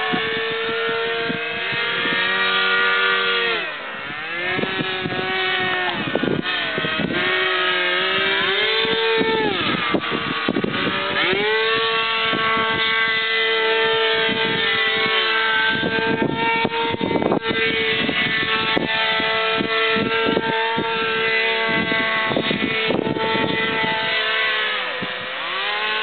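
Motors of radio-controlled paramotors in flight, a steady buzzing whine that drops and climbs back in pitch several times as the throttle is worked.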